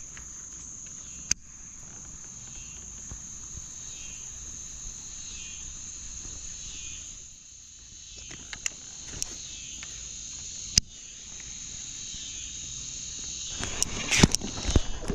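Steady high-pitched drone of a summer insect chorus, with a few sharp clicks scattered through it and a burst of louder noise near the end.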